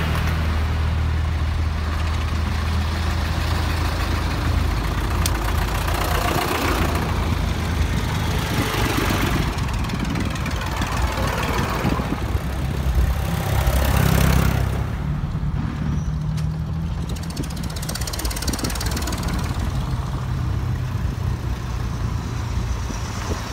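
A procession of old tractors and other vehicles driving slowly past, their engines running at low revs. There is a steady low engine hum throughout, and the sound swells several times as vehicles pass close by.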